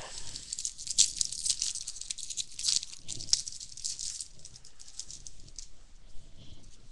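Crinkling and rustling of a Topps baseball card pack and its cards being handled and opened. The sound is dense and rapid for about four seconds, then thins to quieter card handling.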